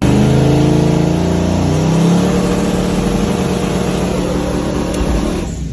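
Turbocharged race car engine held on a two-step launch limiter with the turbo spooling, loud and steady; it fades out near the end.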